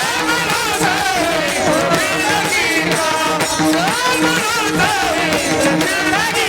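Devotional bhajan music in the wordless gap between sung lines: a melody gliding up and down in pitch over a steady, repeating rhythmic accompaniment.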